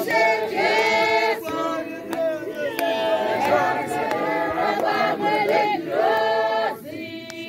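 Church choir of men and women singing a hymn together in chorus. About seven seconds in the singing drops away and quietens, leaving a few held notes.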